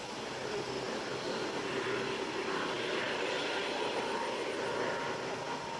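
A steady engine drone that grows a little louder over the first second or two, then holds.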